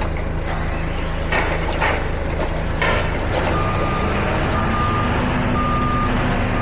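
Komatsu forklift running, with a few clanks early on, then its reverse alarm starting about halfway through and beeping about once a second as it backs up.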